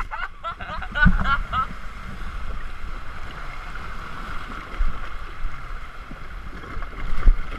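Running, splashing water and wind rumble on a GoPro microphone, with a quick run of short high chirps in the first two seconds.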